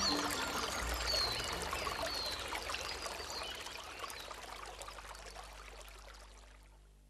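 Steady rushing noise like running water, with a few high falling chirps in the first two seconds, fading out gradually to near silence by the end.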